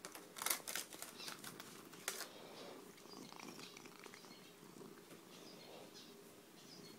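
Cat purring close up, under a run of sharp crackling clicks and rustles that are loudest in the first two seconds and then thin out.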